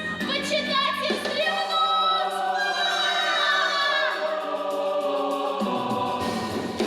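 Music: a choir singing long held notes over theatre-musical accompaniment, with the low instruments dropping out about one and a half seconds in.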